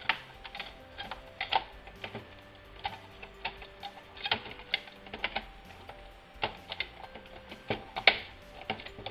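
Irregular clicks and taps of small plastic and metal laptop parts being handled, pried and unclipped during disassembly, with the sharpest click about eight seconds in.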